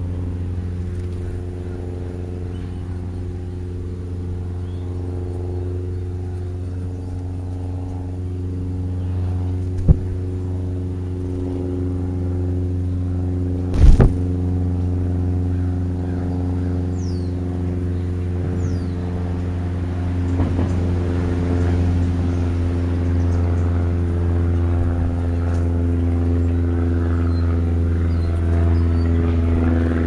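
Car engine idling steadily, a low hum that grows a little louder near the end. A sharp knock comes about ten seconds in and a louder thump about fourteen seconds in, with a few faint bird chirps a few seconds later.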